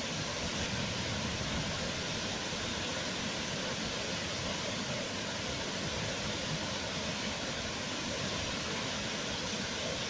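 Steady rushing of a wide waterfall in high flow, pouring in a broad curtain over a rock ledge into a pool below, with an even, unchanging hiss and rumble.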